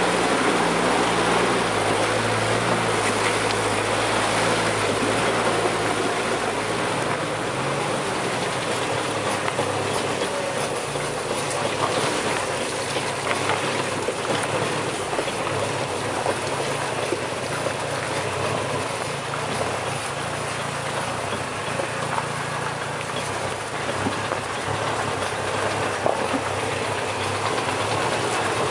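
4x4 vehicle crawling over a rocky dirt track: a steady engine drone under a continual clatter of rattles and knocks from the body and suspension on the rough ground.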